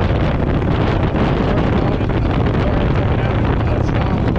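Wind rushing over the microphone of a Harley-Davidson V-twin motorcycle riding at steady road speed, with the engine's low running underneath.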